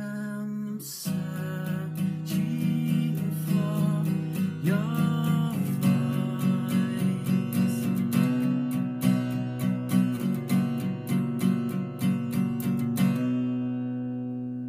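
Acoustic guitar strummed in a steady rhythm, with a few sung notes in the first seconds, closing on a final chord left to ring and fade out about thirteen seconds in.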